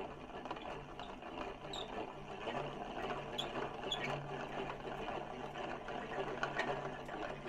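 Yarn winder spinning, winding acrylic yarn into a yarn cake: a steady mechanical whir with a fine rattle of small clicks.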